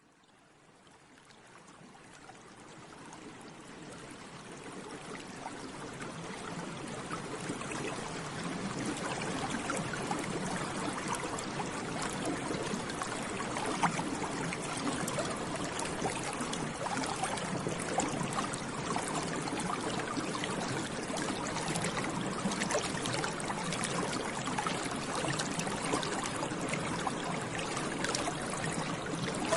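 Water bubbling, with a dense crackle of small bubbles popping. It fades in from near silence over the first several seconds, then runs steadily.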